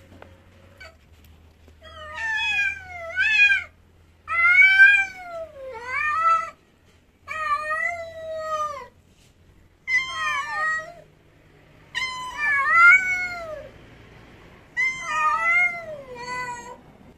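A domestic cat meowing loudly over and over: a long series of drawn-out meows, often two to a bout, each bending up and down in pitch, starting about two seconds in.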